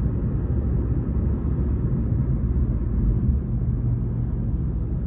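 Steady low engine rumble and road noise of a moving bus, heard from inside.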